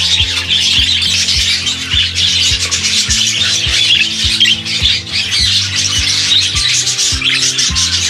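Budgerigars chattering and squawking, a dense high twitter, over background music with held low notes and a steady beat of about two a second.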